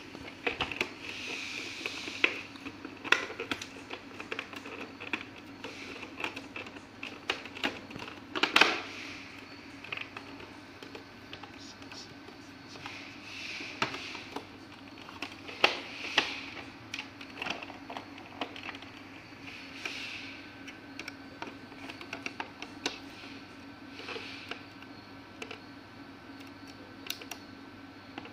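Irregular clicks, taps and rustles of hands handling a projector's plastic housing and main circuit board, pressing and lifting the board and working its ribbon-cable connectors, with a sharper knock about eight seconds in. A steady low hum runs underneath.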